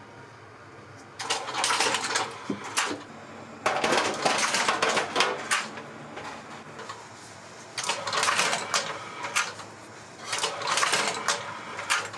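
Knife slicing chashu pork on a cutting board, in four bursts of scraping strokes and knocks about a second or two long, with quieter pauses between them.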